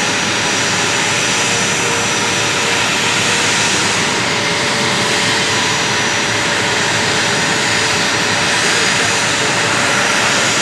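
Two A-10 Thunderbolt II jets' General Electric TF34 turbofan engines running up on the ground close by: a loud, steady jet roar with a high whine. It drowns out the De Havilland Vampire flying past.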